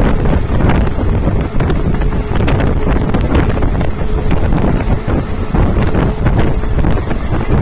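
A passenger train running at speed, heard from on board: the rumble and clatter of its wheels on the rails under heavy wind buffeting the microphone.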